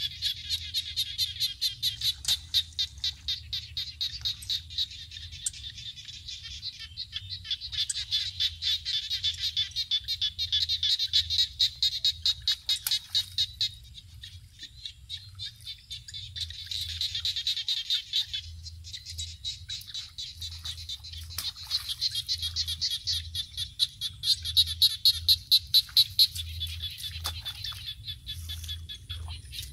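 A chorus of frogs calling, rapid trains of high, clicking pulses several a second. The calling comes in bouts with brief lulls about halfway through and again a little later.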